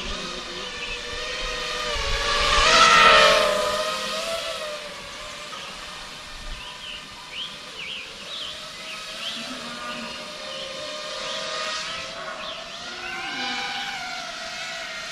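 FPV quadcopter's brushless motors whining, the pitch rising and falling with the throttle. The whine swells loud as the quad passes close about three seconds in, eases off, and swells again near the end.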